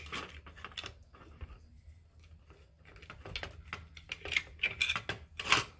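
Hands unwinding a small photo eye sensor's thin wires and handling the plastic door housing: light scattered clicks and rustles, with a few sharper clicks near the end.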